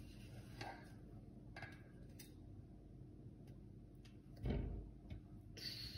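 Quiet kitchen handling: a few light clicks and taps of a spatula against a baking dish as a loaf of microwave-baked bread is lifted out, with one soft thump about four and a half seconds in.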